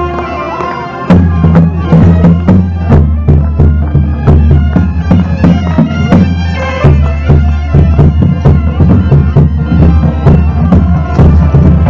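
Bagpipes playing a tune over a steady drone, with a drum beating along. The music dips briefly at the start and comes back in full about a second in.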